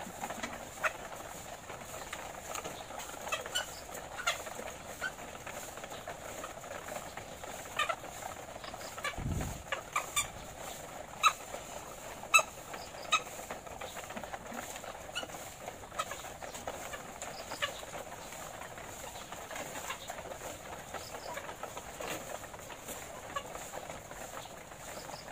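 Many caged laying hens clucking together in a steady low chorus, with scattered sharp clicks and taps from the cages as they feed, and a dull thump about nine seconds in.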